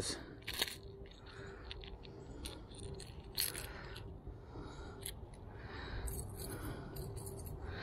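Lipless crankbait's treble hooks and internal rattle clinking in scattered light clicks and short rattles while the lure is worked free of a small bass's mouth by hand.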